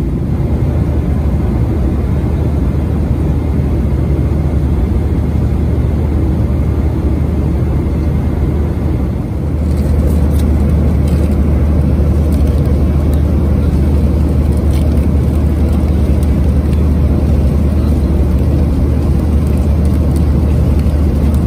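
Steady jet airliner cabin rumble from the engines and airflow in a Boeing 737-900, dipping briefly and changing slightly in tone about nine seconds in.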